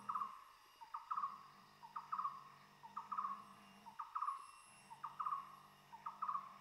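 Tropical forest ambience: an animal call repeated about once a second, each a short double note that falls in pitch, over a steady high-pitched insect drone.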